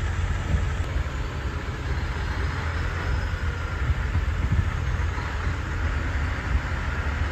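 A moving vehicle's steady low rumble, with an even hiss of road and wind noise over it.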